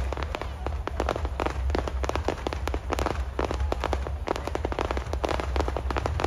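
Fireworks bursting close overhead: a dense, rapid crackling and popping of many small reports, over a steady low rumble.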